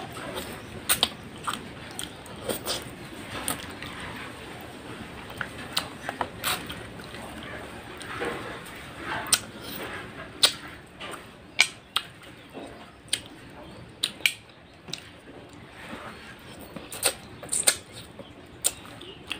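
Close-up mouth sounds of a person eating fish curry and rice by hand: wet chewing with sharp, irregular lip smacks and finger-sucking clicks, about one or two a second.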